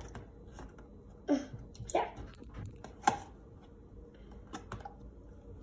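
Two metal spoons knocking and scraping against a plastic tub while prying out a block of feta cheese that is stuck fast. Several separate knocks with quiet gaps between them, the loudest about a second and a half in and again about three seconds in.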